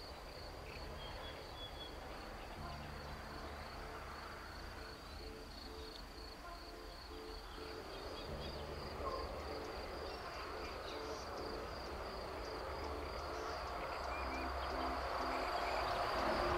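A steady, high, pulsing trill of crickets or bush crickets, with a soft run of short low notes at a few alternating pitches over it from a few seconds in.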